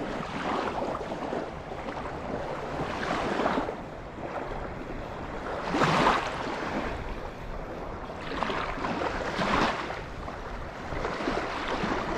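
Small waves washing against a lakeshore, swelling and falling back every two to three seconds, with some wind.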